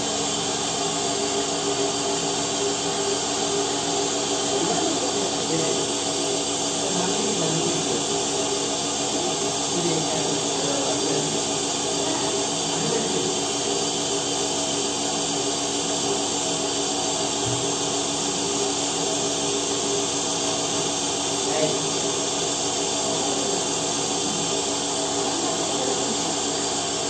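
Engine-driven vacuum pump of a portable milking machine running steadily, drawing vacuum for the teat cups during milking.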